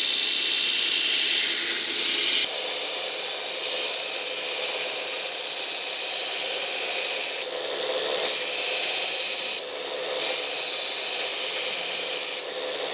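An abrasive power tool working the piece: a steady, loud, high hiss of sanding or grinding. The sound shifts abruptly several times as the work changes.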